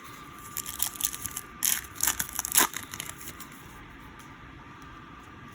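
Topps Chrome trading cards being handled and slid off one another while flipping through a pack: a run of short crackly scrapes and clicks over about two seconds, then stillness.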